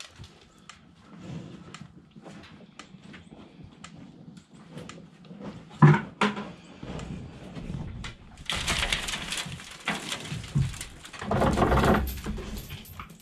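Knocks, clicks and rustling in a wooden milking stall with a cow standing in it, with one sharp knock about six seconds in and two longer stretches of rustling near the end.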